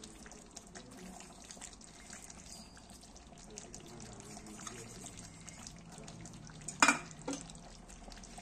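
Chicken curry simmering in the pan, a faint bubbling with fine crackles. About seven seconds in come a sharp metal clink and a lighter one just after.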